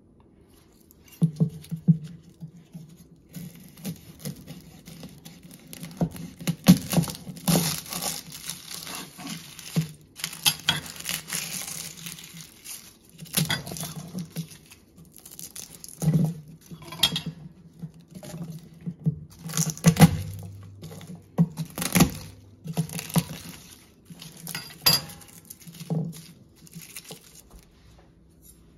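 A garlic bulb being broken apart and peeled by hand on a wooden cutting board: dry papery skins crackling and tearing, with irregular knocks of cloves and fingers against the board, starting about a second in.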